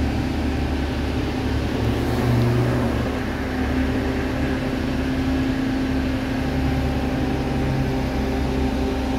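Heavy lifting machinery's diesel engine running steadily with a deep drone, with a brief rise in revs about two seconds in.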